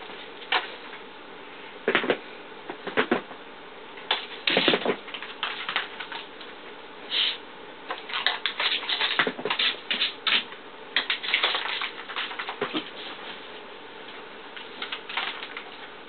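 A Basenji's paws and claws landing on the floor as it hops and bounces on its hind legs: irregular taps and thumps, coming in quick clusters that are busiest through the middle.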